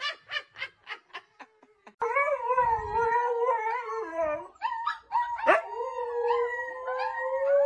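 Siberian huskies, an adult and puppies, howling together in long, wavering howls starting about two seconds in. Before that, a short run of fading laughter.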